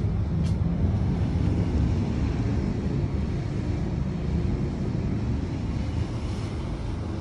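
Steady low rumble of wind buffeting the microphone on a cruise ship's open balcony.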